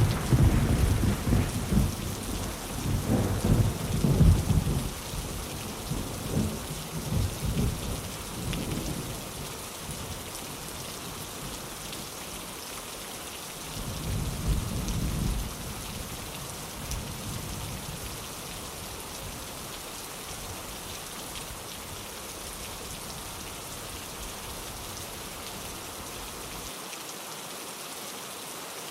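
Steady rain with thunder. A sudden thunderclap at the very start rolls and rumbles for about ten seconds. A second, shorter rumble comes about fourteen seconds in, then the rain goes on alone.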